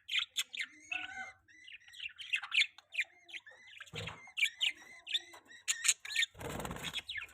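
Budgerigar chirping and chattering in quick, short notes that come one after another. A knock about four seconds in, and a brief noisy rustle near the end.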